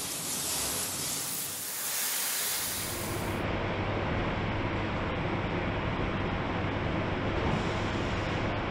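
Spray nozzles hissing as they jet cleaning water onto a truck cab body in the pretreatment line, stopping about three seconds in. A steady low hum and rumble of plant machinery runs underneath and carries on alone after that.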